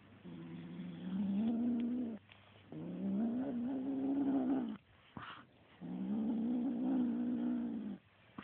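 Kitten growling over a feather toy it has grabbed: three long growls of about two seconds each, each rising in pitch at the start and then held. A short high squeak comes between the second and third growl.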